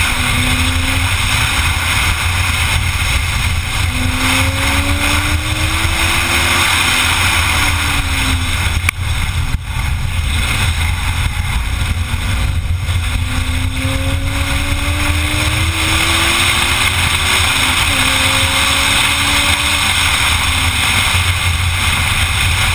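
Sports car engine under track driving, its note climbing in pitch and dropping back several times as the car accelerates and lifts or shifts, buried under heavy wind and road noise on a camera mounted outside the car.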